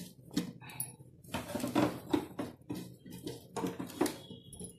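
Dry-roasted whole spices rattling and rustling as they are tipped and scraped from a steel plate into a stainless-steel mixer-grinder jar, with light clinks of steel on steel in irregular bursts. Another clatter near the end as the jar is set onto the grinder base.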